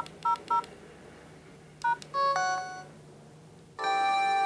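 LG GS101 mobile phone's keypad beeping as buttons are pressed: three short two-note beeps in quick succession, then a single beep and a short run of tones around two seconds in. Near the end the phone's power-on melody starts loudly.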